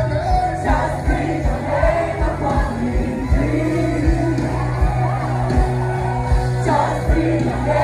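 Pop-style song with a singing voice over a steady thumping beat.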